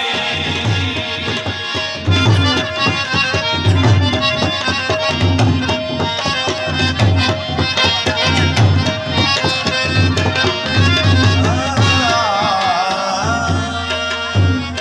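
Tabla playing a steady driving rhythm under a harmonium's held reed notes, in a folk song's instrumental interlude; a man's amplified singing voice comes back in near the end.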